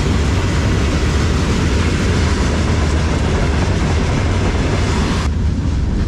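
Freight train of open wagons passing close by: a loud, steady rumble and rush of wheels on rail. About five seconds in, the high hiss drops away suddenly, leaving the low rumble.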